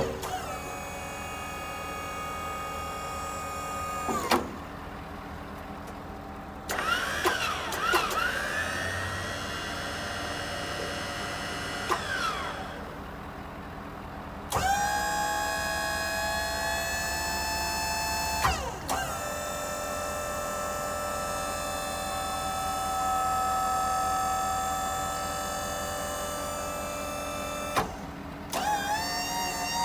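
Electric-over-hydraulic pump motor of an Auto Crane 5005EH service crane whining as the boom is operated. It runs in several spells of a few seconds each, starting and stopping abruptly, and its pitch glides as it comes up to speed or takes load.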